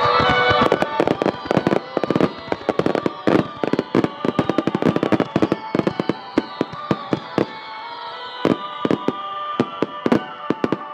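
Aerial fireworks crackling and popping in rapid, dense volleys that thin out toward the end, with background music playing underneath.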